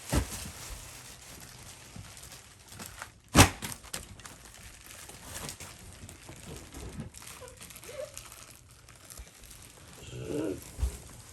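Packaging being handled and pulled off a boxed kids' ride-on truck: plastic and cardboard crinkling and rustling, with a few sharp knocks, the loudest about three and a half seconds in.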